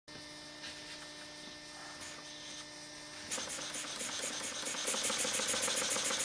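Small double-acting oscillating model steam engine, 7/16" bore, starting up. A faint steady hum is followed about halfway through by a louder, rapid, even chuffing of the cylinder exhaust as the engine runs.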